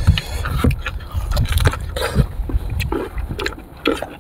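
Close-miked eating: biting into and chewing sour fruit, heard as a string of short crunching and wet smacking clicks.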